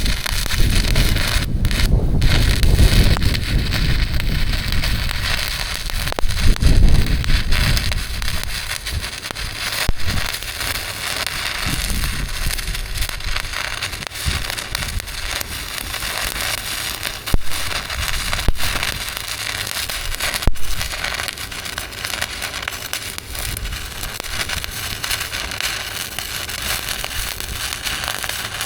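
Electric welding arc crackling and sputtering steadily. A low rumble is also heard in the first several seconds.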